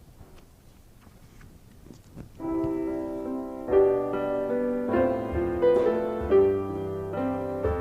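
Piano playing a hymn introduction in sustained chords, entering about two and a half seconds in after a quiet pause with a few faint clicks.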